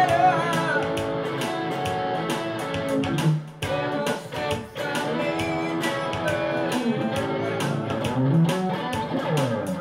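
Electric guitar playing an instrumental passage of a gospel shuffle, over a steady beat of percussive hits.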